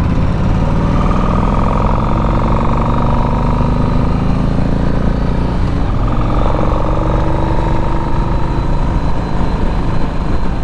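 Yamaha Stratoliner's V-twin engine under way, revs climbing through one gear, dropping with a shift about six seconds in, then climbing again. Wind rumbles over the rider's microphone throughout.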